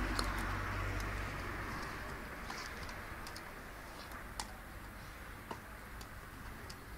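A dog nosing and nibbling in loose soil at the base of a rose bush, giving faint, irregular small clicks and ticks. Under them a steady background rumble fades over the first couple of seconds.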